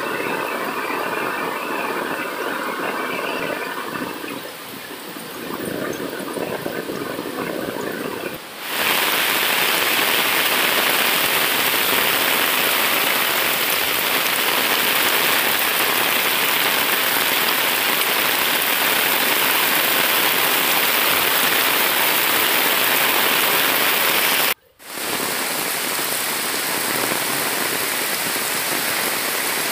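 Heavy monsoon rain pouring onto flooded ground and leaves, a steady hiss that becomes louder and denser after about eight seconds. It breaks off for a moment near the end, then carries on a little softer.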